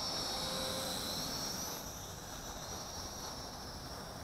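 Mould King 33043 Super F micro quadcopter in flight, its propellers whining at a high pitch that wavers with throttle. The whine is loudest in the first couple of seconds, then eases off a little.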